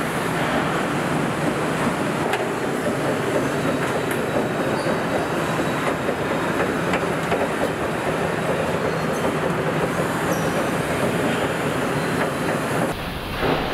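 Steady din of a car assembly plant floor: machinery and conveyor noise with a few faint sharp clicks. It changes abruptly near the end, with a short thump.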